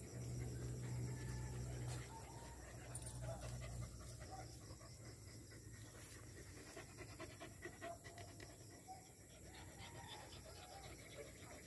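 A dog panting with its mouth open, a run of quick faint breaths, over a steady high-pitched drone.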